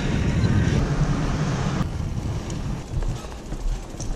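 Wind buffeting and rumble on a GoPro Hero 5 Black's microphone while mountain biking, easing off about two seconds in.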